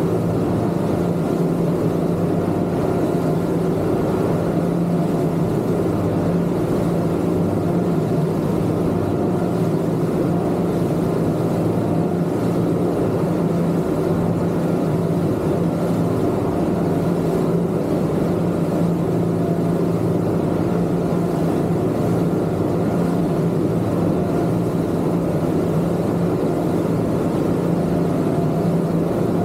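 Twin Yamaha 250 outboard motors running at a steady speed, a constant hum with no change in pitch.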